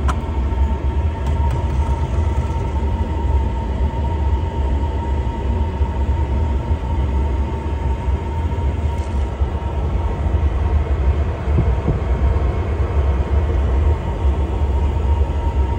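Jandy Pro Series JXi gas pool and spa heater running in spa-heat mode: a steady rumble from the firing burner and combustion blower, with a thin steady whine over it.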